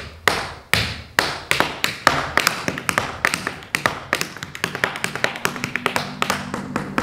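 Tap shoes' metal taps striking a wooden floor in a tap-dance rhythm. Single sharp strikes about half a second apart quicken, from about two seconds in, into fast runs of taps.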